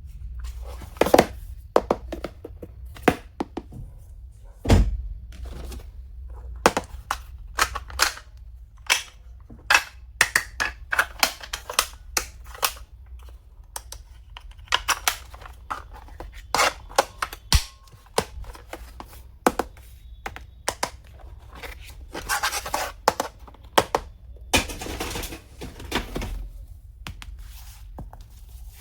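Stationery and its packaging being handled: a string of irregular clicks, taps and knocks, with a couple of longer rustling, tearing stretches past the two-thirds mark.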